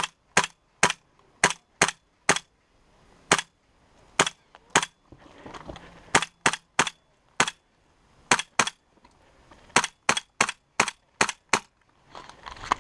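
An airsoft gun fired in about twenty sharp single shots, sometimes in quick runs, sometimes with a second or more between them. Near the end the shots stop and rustling movement follows.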